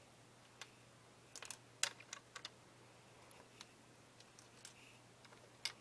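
Small plastic LEGO plates clicking and tapping faintly as they are handled and pressed onto the build, a scatter of separate clicks bunched in the first half.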